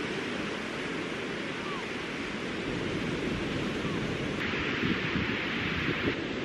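Sea surf washing onto a sandy beach, a steady hiss, with wind rumbling on the microphone. The hiss of the surf grows louder for a couple of seconds in the second half.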